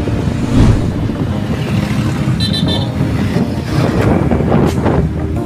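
Steady road-traffic rumble of passing engines, with a vehicle horn giving a quick run of short beeps about halfway through.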